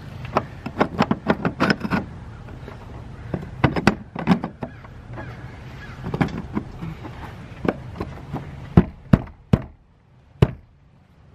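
Metal clicks and knocks of a fuel pump lock ring tool being set onto a fuel tank's steel lock ring and worked into place by hand: a quick run of light clicks at the start, scattered taps, then four sharper knocks near the end.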